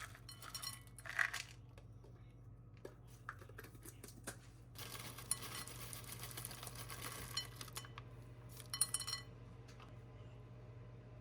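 Light clinks and clatter of dishes and cutlery, a few near the start and a quick cluster near the end, with a stretch of hissing noise in the middle over a steady low hum.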